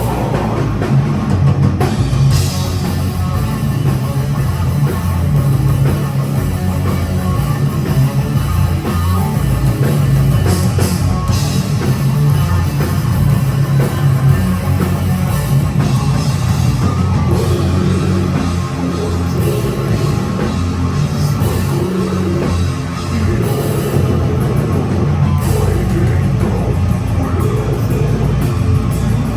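Death metal band playing live: drum kit and guitars, loud and dense without a break.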